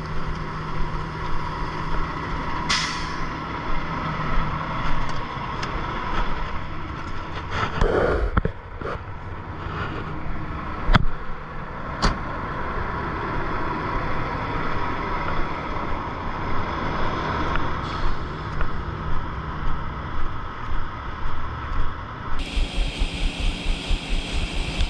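Semi truck's diesel engine running steadily, with a short hiss of air about three seconds in and a few sharp clicks. Near the end the sound changes abruptly to a rougher, fast-pulsing noise.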